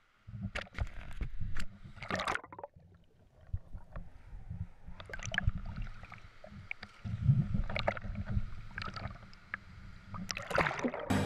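Water sloshing and bubbling around a waterproof camera at and below the surface of a cave sump, an uneven low rumble broken by irregular knocks and splashes.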